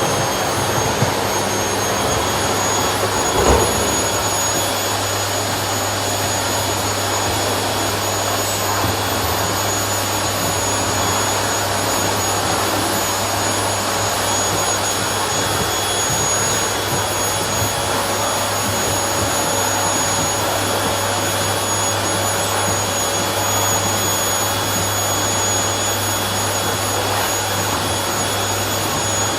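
Vacuum cleaner running steadily while a floor is vacuumed, a continuous whooshing hum with a steady high whine. A brief knock about three and a half seconds in.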